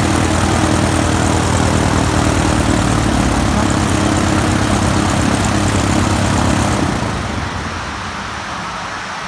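A Cessna's piston engine and propeller running, then shutting down: the engine sound thins about halfway through and dies away about seven seconds in, leaving a steady hiss.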